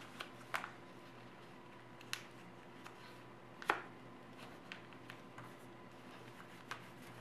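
Sheet of origami paper crinkling and crackling as it is folded and creased by hand: a few scattered sharp crackles, the loudest a little past halfway, over a faint low hum.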